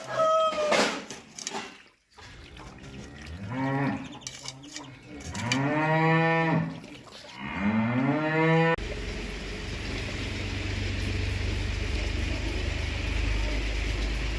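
Cattle mooing: three long moos in a row, the middle one the loudest, after the tail of a rooster's crow in the first second. Just under nine seconds in, the sound changes abruptly to a steady rushing noise with a low rumble.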